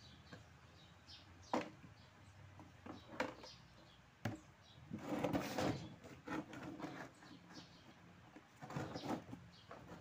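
Metal hand tools, a screwdriver and a long metal rod, knocking and scraping against a washing machine's plastic tub and pulley hub as it is pried apart: a few sharp irregular knocks, with a longer, louder scraping rattle about halfway through and another cluster of knocks near the end.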